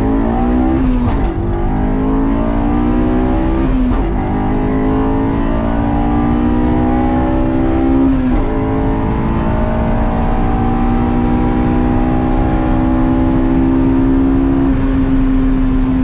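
Honda S2000 engine with a Berk high-flow catalytic converter accelerating hard from inside the cabin, rising in pitch through each gear. Three quick upshifts drop the pitch about a second, four and eight seconds in, and it levels off near the end.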